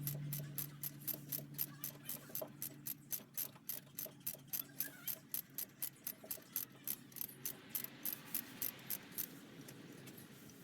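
Ratchet wrench clicking quickly and evenly, about four to five clicks a second, as the rocker arm bolts on a 4D56 diesel cylinder head are run down; the clicking stops near the end.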